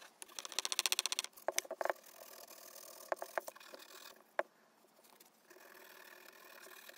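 Folded sandpaper rubbed by hand over a carved poplar lure body: a quick run of short scratchy strokes for about the first second, then slower rasping broken by a few sharp clicks and knocks.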